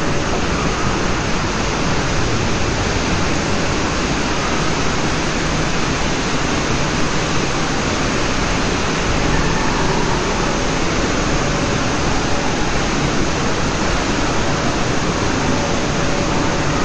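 Loud, steady rush of falling water: an even, unbroken noise with no let-up.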